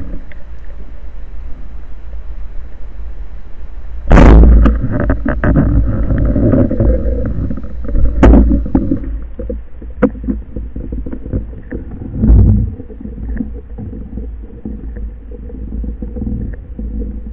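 Underwater sound picked up by a camera mounted on a speargun: a steady low rush of water against the housing with scattered clicks. A loud sudden burst comes about four seconds in, with smaller ones near eight and twelve seconds.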